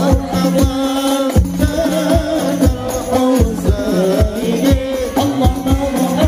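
A group of male voices singing a devotional song in unison, with rebana frame drums beaten in a steady rhythm beneath them.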